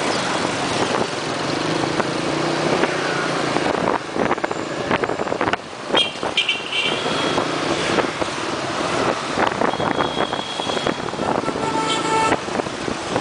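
Riding on a motorbike through street traffic: steady engine and road noise, with several short horn beeps in the second half.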